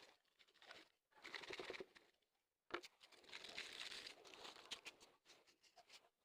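Lumps of dry pure mud crunching and crumbling as they are crushed, with fine crackles. There is a short bout about a second in and a longer one that starts sharply near three seconds in and lasts about two seconds.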